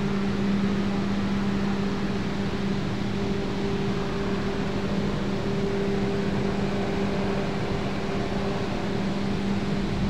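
Turbulent water rushing and churning in a steady roar of white noise, with a steady low mechanical hum running under it.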